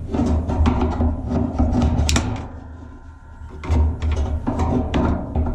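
Screwdriver working at a washing machine's plastic water-pump brackets: a run of clicks, knocks and scraping, with a short lull partway through.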